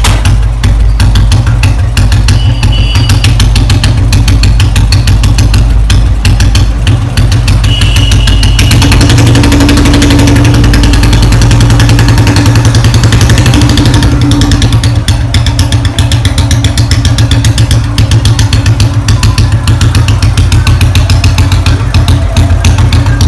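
Royal Enfield Bullet Electra's single-cylinder four-stroke engine running with a steady exhaust beat. It picks up pace and loudness about nine seconds in, then eases back after about fourteen seconds.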